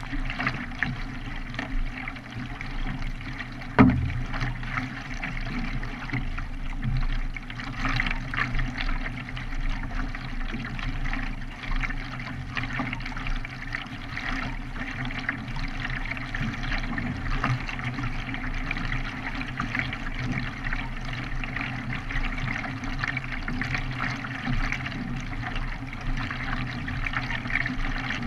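Water splashing and trickling around a K1 racing kayak being paddled, with a sharp knock about four seconds in.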